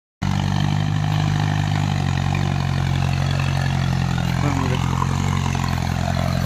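Mahindra Arjun Ultra tractor's diesel engine running steadily as it pulls a trailer heavily overloaded with sugar cane.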